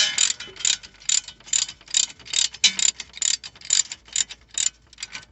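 Hand ratchet wrench clicking in quick back-and-forth strokes, about three a second, as a front brake caliper bolt is run down tight; the strokes thin out near the end.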